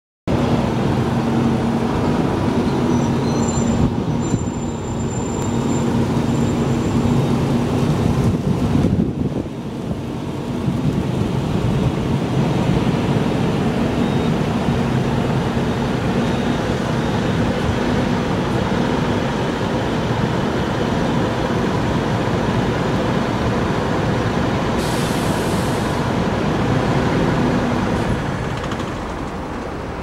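Steady motor-traffic noise with a low engine hum, dipping briefly about nine seconds in.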